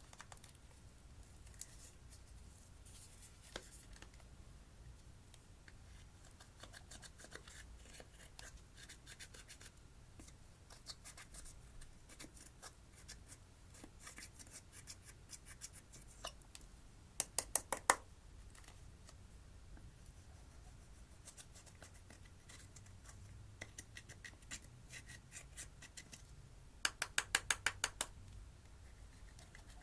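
Slime being kneaded and pressed by hand, giving a faint, steady crackle of small clicks. Twice, about halfway through and again near the end, comes a quick run of louder, evenly spaced pops, about seven in a second, as trapped air is squeezed out.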